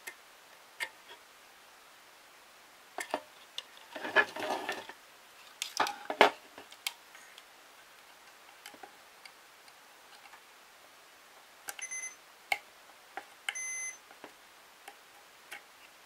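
Continuity tester probes clicking and scraping against a car horn's metal mounting stay and terminals, with handling noise about four and six seconds in. Near the end the tester gives two short beeps, its signal that the probes are across a closed circuit.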